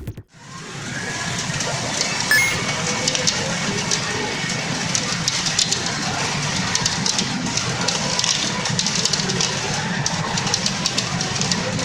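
Steady clatter of steel pachinko balls rattling and clicking through the pins of pachinko machines, setting in about half a second in.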